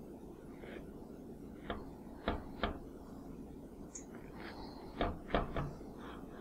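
A cutting utensil knocking and clicking against a metal brownie pan while a baked coffee cake is cut into pieces: two groups of about three short knocks, the first about two seconds in and the second about five seconds in.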